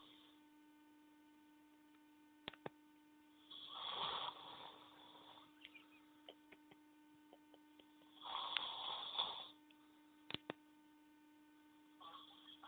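A person snoring: three breathy snores about four seconds apart, the last cut short near the end, over a steady hum. A few short clicks fall between the snores.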